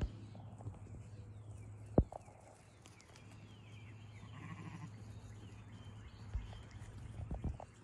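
American Blackbelly sheep bleating faintly a few times. A single sharp knock comes about two seconds in, and lighter knocks follow near the end.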